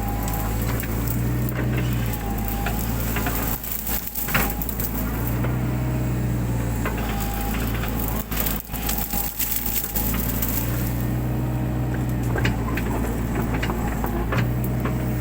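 Mini excavator's diesel engine running steadily, its note rising for a second or two every few seconds as the hydraulics take load, over scattered crackling and snapping of brush and woody stems being crushed and broken.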